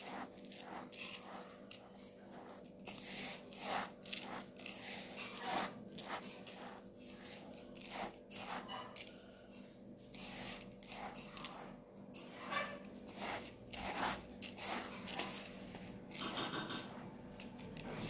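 Hand mixing raw rice grains coated with spices, ghee and sugar in a bowl: the grains crunch and rustle in irregular strokes as they are squeezed and turned over.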